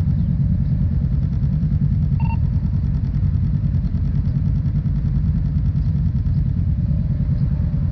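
Motorcycle engine idling close by, a steady low pulsing. A short electronic beep sounds once about two seconds in.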